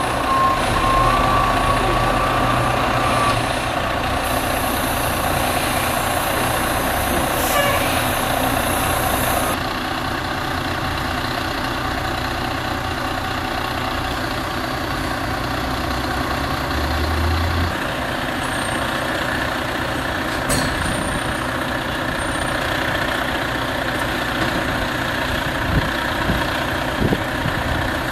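Heavy truck engine idling steadily, with a steady high tone for the first few seconds and a sharp click about twenty seconds in.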